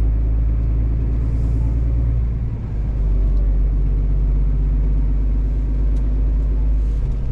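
Steady low rumble of a truck's diesel engine and road noise while driving, with an even engine drone; the level dips briefly about two and a half seconds in.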